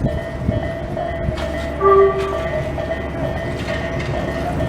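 Tobu line electric train rumbling past a level crossing while the crossing's electronic warning bell rings steadily. A short horn blast comes about two seconds in.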